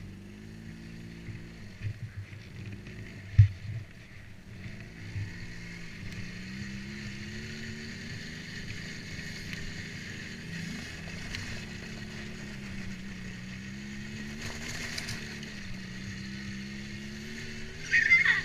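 ATV engine running while the quad is ridden, its pitch rising and falling slowly with the throttle. A single sharp knock sounds about three and a half seconds in, and a brief louder sound comes just before the end.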